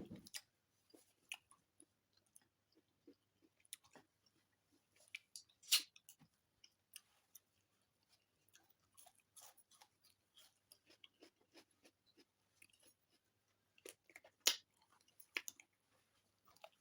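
Close-miked mouth sounds of a person chewing nkwobi, spicy goat head and goat foot meat: faint wet chewing and lip smacks broken by sharp clicks, the loudest about six seconds in and again near fourteen and a half seconds.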